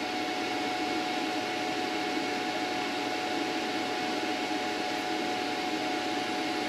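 A steady machine hum and hiss with a faint constant high whine, unchanging throughout.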